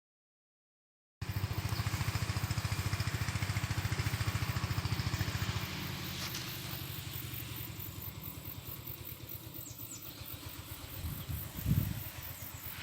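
A small engine running with rapid, even pulses, loud at first and quieter after about five seconds, with a low swell near the end.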